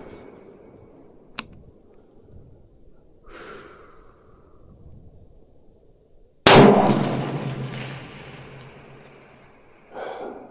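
A single shot from an AR-15-style rifle firing Hornady Match .223 75-grain boat-tail hollow-point ammunition, about six and a half seconds in. The sharp crack is followed by an echoing tail that fades over about three seconds.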